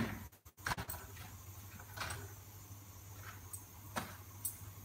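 Faint taps and clicks as a chapati is handled at the stove and laid on a stack of chapatis on a plate, over a low steady hum.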